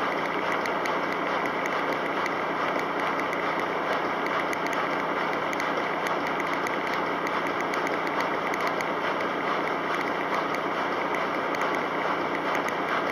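Kelvinator K605 top-loading washing machine running mid-cycle: a steady, even machine noise with a low hum.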